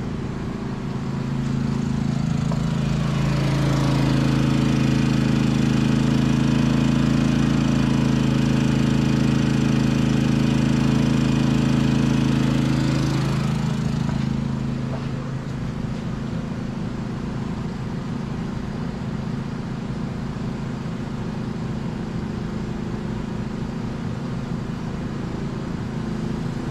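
Cummins 4500 inverter generator's engine running under about 2200 watts of load. About two seconds in its pitch rises and it gets louder, then it falls back to a lower, steadier hum around fourteen seconds in.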